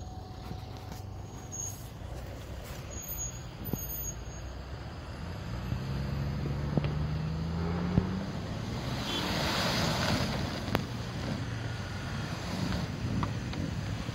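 Toyota Land Cruiser 100-series engine pulling hard up a steep snowy slope. The revs rise a few seconds in and then hold high, with a rush of noise from the tyres spinning and throwing snow.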